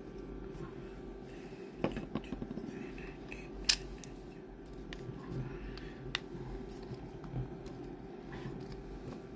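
Scattered hard plastic clicks and knocks as 3D-printed PLA lamp parts are handled and pressed together, the sharpest click a little under four seconds in, over a steady low hum.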